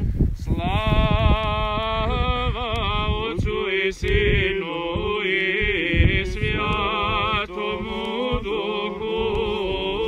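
Men chanting a Serbian Orthodox liturgical hymn in Church Slavonic, sustained, melismatic notes with a wavering melody, over a low rumble.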